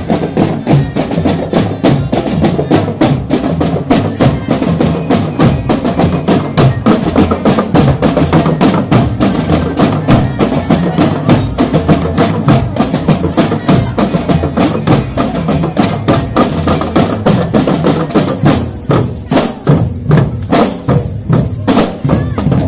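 Marching drum band playing: dense, fast drum and percussion strokes with a pitched melody line underneath.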